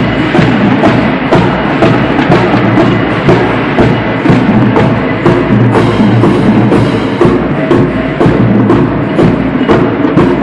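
Marching band playing as it passes: brass with sousaphones over drums and cymbals, loud, with sharp drum hits keeping a steady beat.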